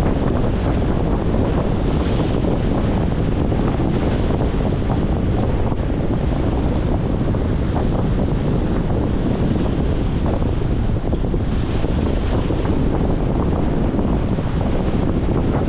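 Strong wind buffeting the microphone in a steady low rumble, with choppy waves washing against a concrete shoreline.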